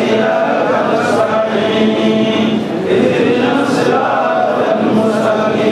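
A congregation of many voices chanting together in unison, a continuous sung drone that rises and falls slowly without pause.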